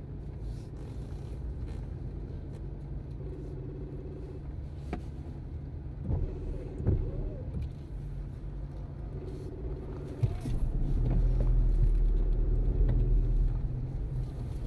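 Low rumble of a car's engine and cabin, heard from inside while the car idles in traffic. About ten seconds in, the rumble grows louder as the car pulls away.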